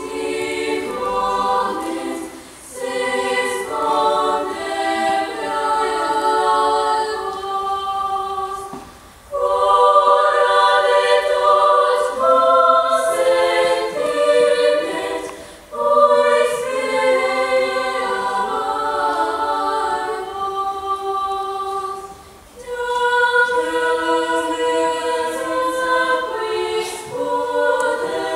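Youth choir singing in several parts, sustained phrases with short breaks between them every few seconds.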